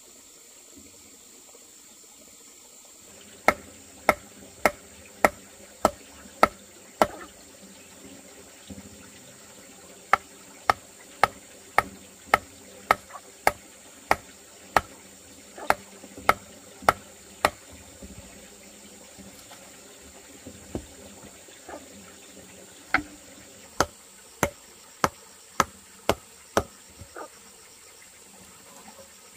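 Runs of regular sharp knocks, a tool striking about one and a half to two times a second, three times over with pauses between. Under them is a steady high-pitched insect drone.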